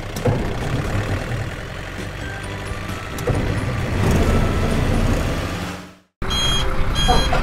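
Truck engine sound for a toy cargo truck being pushed along, running steadily and fading out about six seconds in. A short chiming sound follows near the end.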